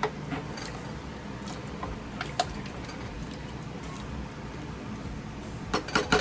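Wooden spoon stirring rice, chicken and water in an aluminium pressure-cooker pot: liquid swishing, with scattered light knocks of the spoon against the pot and a quick cluster of knocks near the end.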